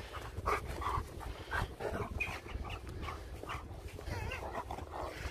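Husky-type dog vocalising with short whines and panting, including a wavering, warbling whine about four seconds in.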